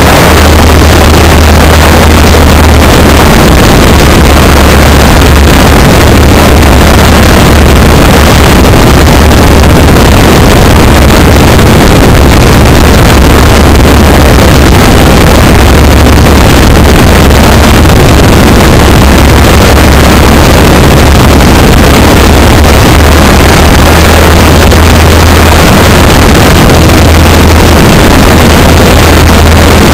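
Legal Eagle ultralight's engine and propeller running steadily in flight: a very loud, unbroken low drone buried in heavy wind rush on the microphone.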